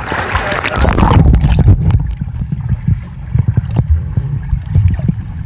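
Swimming-pool water heard through a submerged camera: splashing for about a second, then a muffled, low rumbling churn of moving water with scattered dull thuds, the higher sounds cut away.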